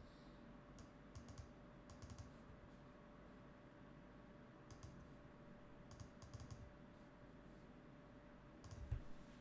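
Faint computer keyboard and mouse clicks in small scattered groups, over a faint steady hum, with a slightly stronger low thump near the end.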